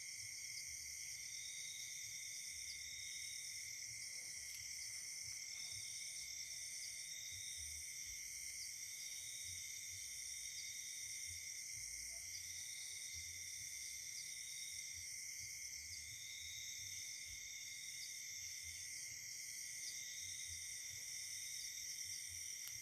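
A faint, steady chorus of crickets and other night insects trilling at several high pitches, one of the trills switching on and off in regular spells every few seconds.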